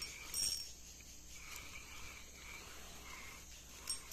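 Insects chirping and trilling in the riverside forest, a steady high buzz with scattered chirps. A brief rustle of cloth against the microphone about half a second in.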